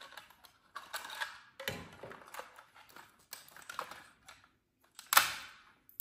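Small plastic clicks and rattles as a Mercedes-Benz W140 interior rear-view mirror is handled and its front frame worked loose, with one sharper plastic knock about five seconds in.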